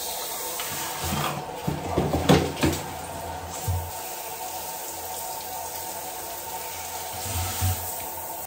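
Water spraying from a handheld shower head onto a tiled bathroom floor and the base of a toilet, a steady rush that cuts off suddenly at the end. A few dull knocks sound in the first half and once near the end.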